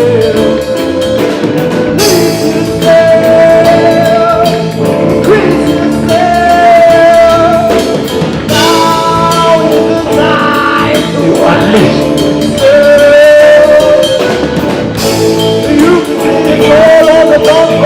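Band music with a drum kit and a sung melody line, with a strong accented hit about every six and a half seconds.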